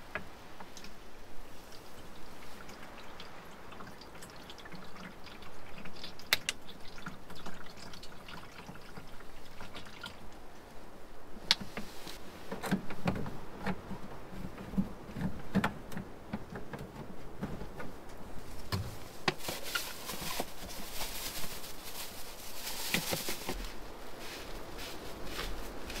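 Liquid pouring and trickling into a tank, with knocks and clatter of plastic containers being handled; a louder rushing hiss for several seconds near the end.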